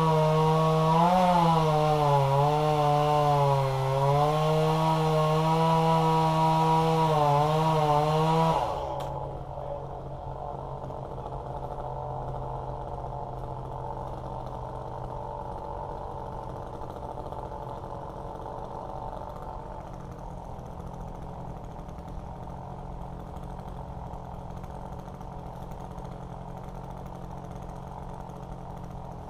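Chainsaw running at high revs with its pitch dipping and recovering, as when it is cutting. About eight seconds in it drops back to a quieter, steady idle that lasts to the end.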